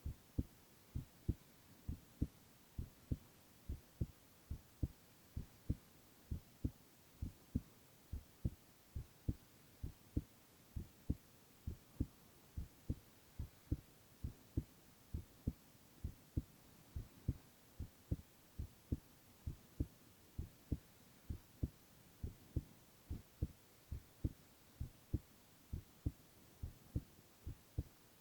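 A man's heartbeat heard close up: steady paired low thumps (lub-dub), a little more than one beat a second, over a faint hiss.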